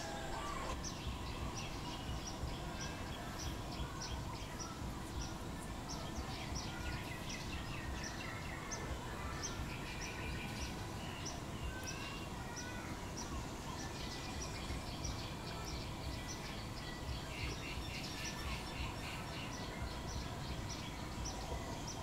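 Wild birds calling in the trees: a high, quick chirp repeated about three times a second, with other scattered chirps and warbles mixed in, over a steady background rumble.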